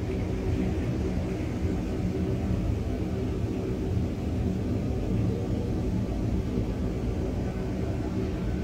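Steady low rumbling drone with several held low tones: a 'sound of space' ambient track, electromagnetic signals converted into audible sound.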